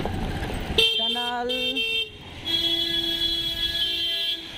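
Scooter horn honked twice: a short honk about a second in, then a long, steady honk of about two seconds that shifts pitch slightly near its end.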